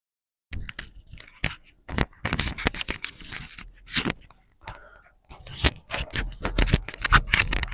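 Irregular scraping, rustling and sharp knocking noises in quick, uneven bursts, starting about half a second in, with a few short pauses.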